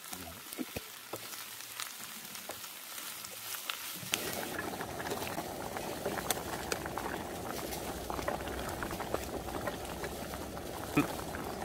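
Food sizzling faintly in a grill pan on a portable gas stove, then, about four seconds in, a pot of kimchi stew bubbling at a steady boil. A single sharp tick near the end.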